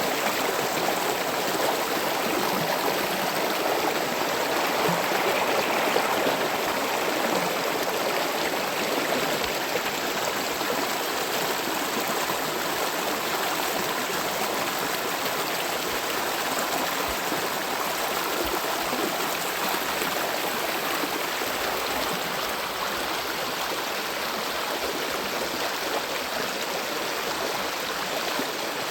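Steady rushing of a flowing stream, an even, unbroken water noise.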